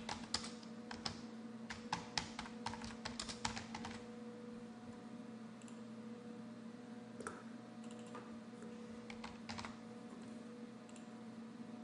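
Typing on a computer keyboard: a quick run of keystrokes over the first four seconds, then a few scattered clicks.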